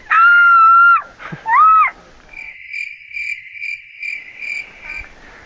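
A young woman's high, drawn-out hooting calls made through a cupped hand, imitating seals to lure them in: one call about a second long, then a shorter one. After them, a quieter steady high-pitched chirring that pulses about two or three times a second for about three seconds.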